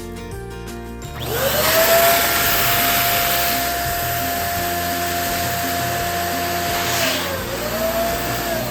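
Electric balloon pump starting up about a second in and running steadily, its motor whine rising quickly to a steady pitch, dipping briefly near the end and picking up again, over background music.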